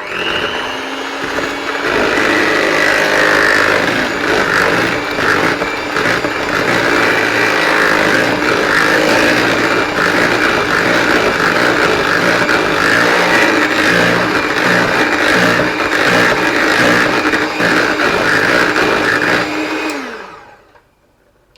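Electric hand whisk running, its beaters whisking an egg into creamed sugar and low-fat spread in a mixing bowl. The motor starts at once, runs steadily, then winds down and stops about twenty seconds in.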